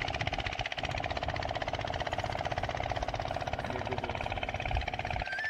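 Spinning reel whirring with a fast, even clicking while a hooked fish is played on a bent rod.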